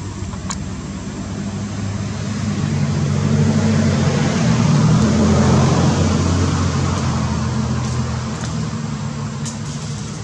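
A motor vehicle's engine passing by: a low hum that grows louder to a peak around the middle, then fades away.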